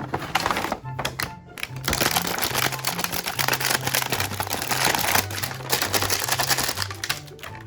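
Background music with a steady, repeating bass line. From about two seconds in, a dense run of rapid crackling and clicking rides over it until near the end, typical of plastic toy packaging being handled and opened.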